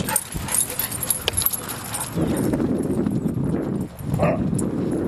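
Wind buffeting the microphone in gusts, with crunching steps on a dirt and gravel path.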